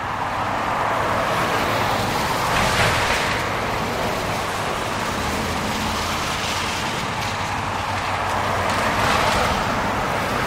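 Road traffic on a wet, slushy road: steady tyre hiss that swells as vehicles pass, about three seconds in and again near the end, over a low, steady engine hum.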